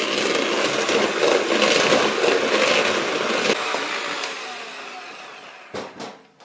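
Electric hand mixer beating chilled canned coconut cream in a bowl, the motor running steadily with the beaters churning, then fading away; a couple of sharp knocks near the end.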